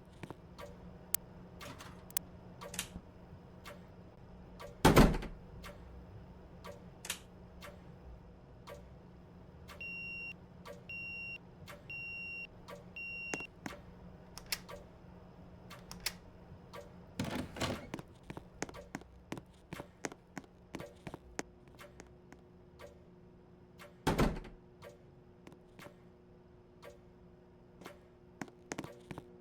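Scattered clicks and knocks of handling, with three louder thumps, and near the middle a run of four short, high electronic beeps about a second apart, over a faint steady hum.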